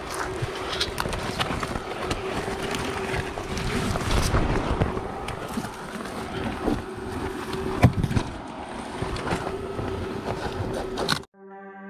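Branches and leaves rustling and climbing gear knocking, with irregular clicks over wind-like noise and a steady low hum. A little before the end it cuts off abruptly into calm music.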